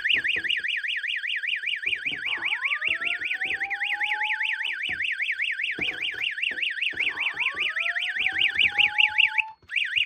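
Fire alarm devices sounding: an electronic alarm tone warbling rapidly up and down about six times a second, with the slow rising "whoop" tone of a Simplex voice-evacuation system sounding twice underneath. Both cut off near the end, with a brief burst of the warble just after.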